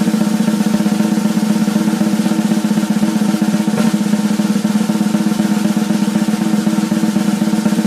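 A drum roll: very rapid, even strokes held at a steady level without a break.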